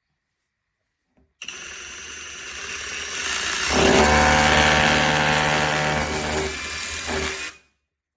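Greenworks GD24SDS2 brushless cordless SDS rotary hammer drill running. It starts about a second and a half in, gets much louder and harsher about four seconds in, then stops suddenly near the end.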